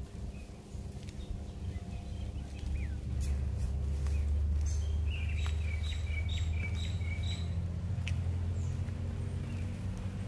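A low, steady mechanical hum that swells in about a second and a half in and eases off near the end, with a bird chirping a quick run of calls in the middle.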